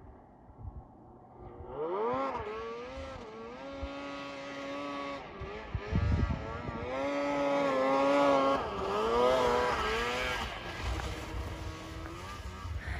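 Snowmobile engine revving as the sled carves through the snow, its pitch climbing and dropping again and again with the throttle. A few low thumps about six seconds in.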